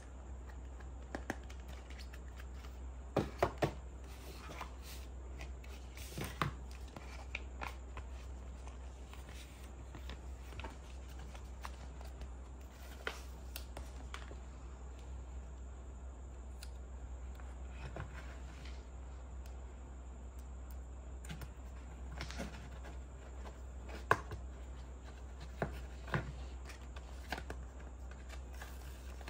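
Small plastic toy-kitchen parts clicking and tapping as they are handled and pressed together, with paper rustling from a sticker sheet; the clicks come scattered, a few louder than the rest. A steady low hum runs underneath.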